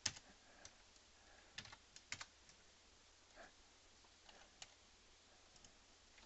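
Faint, irregular clicks and taps of a computer keyboard and mouse, about a dozen in all, the loudest right at the start.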